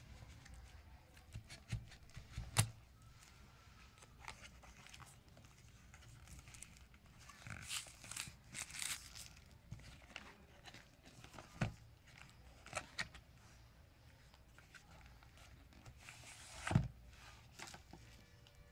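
Smartphone box being unpacked: a knife blade slitting the seal sticker, plastic wrap crinkling and tearing, and the cardboard sleeve sliding open. Scattered sharp taps and knocks come through it, the loudest about two and a half seconds in and near the end.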